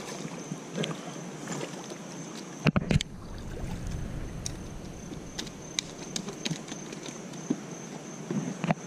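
River water lapping and moving against the rocks, with two sharp thumps close together about three seconds in and a few light clicks scattered through.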